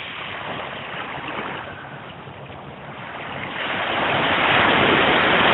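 Surf washing up the beach, easing off and then a wave rushing in louder over the last two seconds.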